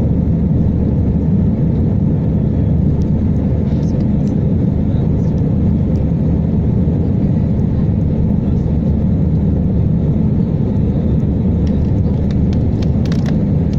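Cabin noise inside an Airbus A320-family airliner during the climb after take-off: a steady, deep rumble of the jet engines and rushing air. A few faint clicks come near the end.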